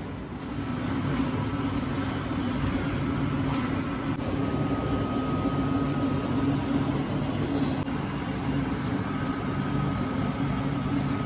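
A steady low mechanical hum with a faint high whine that comes and goes.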